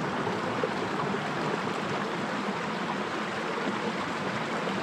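Flowing stream water rushing steadily.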